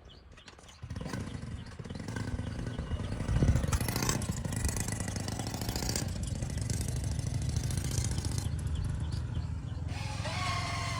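A small engine starts about a second in and keeps running steadily, with a rapid low pulsing.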